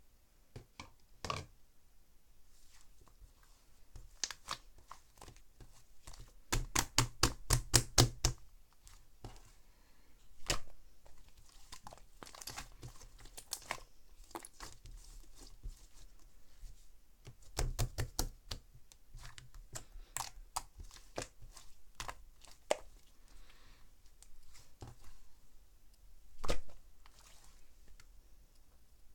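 Slime being squeezed and pressed by hand, giving irregular sticky clicks and air-bubble pops, with a quick run of loud pops about seven seconds in and another around eighteen seconds.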